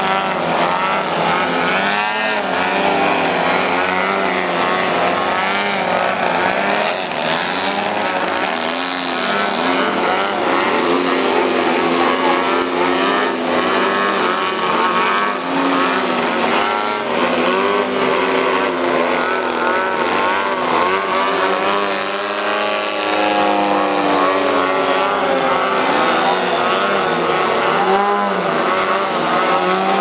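Several large radio-controlled aerobatic planes' engines and propellers running together as the planes hang in a hover, overlapping drones whose pitch keeps rising and falling as the throttles are worked to hold them up.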